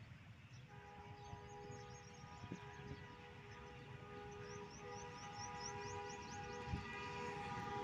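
Multi-note horn of an approaching GE GEU40 diesel-electric locomotive, faint and distant: one long chord blast starting about a second in, briefly broken near the middle, then sounding on and growing louder as the train nears.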